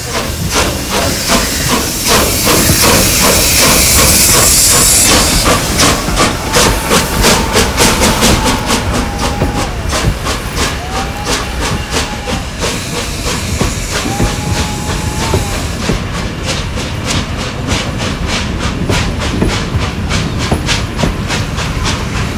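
Steam locomotive pulling out of the station: a loud hiss of steam for the first few seconds over rhythmic exhaust chuffs. Its carriages then roll past with a steady clickety-clack over the rail joints.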